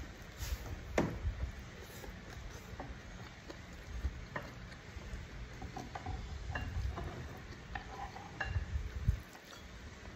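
Eating with the hand from a ceramic plate: fingers gathering rice and sauced chicken against the plate, with scattered light clicks, soft thuds and chewing.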